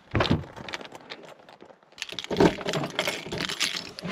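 Keys jangling with a run of small clicks and rattles as a Toyota Prado's door handle and lock are worked by hand. The clicks come in a short burst at the start and grow thicker from about two seconds in.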